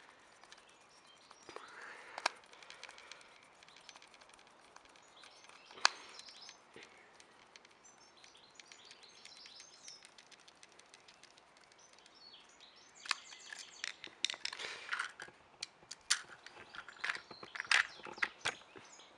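Small clicks and scraping of a screwdriver and plastic parts as a battery-powered Motorized toy engine's battery compartment is screwed shut, with a busier run of clicks and scrapes in the last few seconds.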